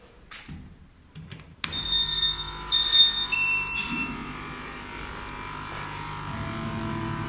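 ORee CO2 laser cutting machine switched on: a sudden start about a second and a half in, a run of high steady tones stepping between pitches for about two seconds, then a steady running hum as the machine powers up.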